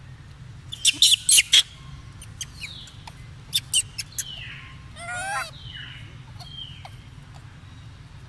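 Monkey squealing: a quick run of sharp, shrill squeaks about a second in, a few more around three and a half seconds, and a longer wavering call about five seconds in.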